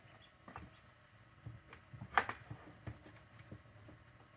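Newly hatched ducklings stirring inside a dome incubator: a scatter of faint short taps and squeaks, the strongest about two seconds in.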